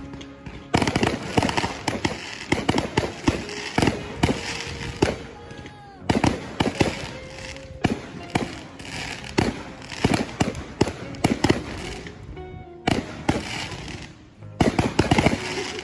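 Fireworks display: rapid bangs and crackling from aerial shells going off in dense clusters, with short lulls between volleys.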